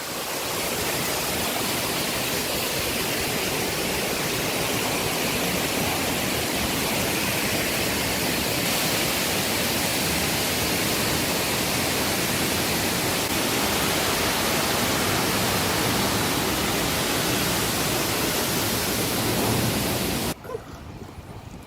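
Waterfall: a steady, loud rush of falling water that cuts off abruptly about twenty seconds in, leaving a much quieter background.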